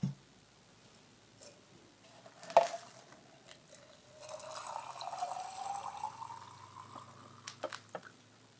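Tap water poured from a pitcher into a glass canning jar of dry black beans, the pitch of the pour rising as the jar fills for about three seconds. A single sharp knock comes before it, and a few small clicks near the end.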